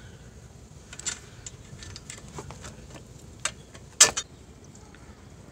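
Scattered small metal clicks and taps of a bolt and washer being fitted by hand into a 2000 Suzuki Hayabusa's top radiator mounting bracket, the sharpest click about four seconds in.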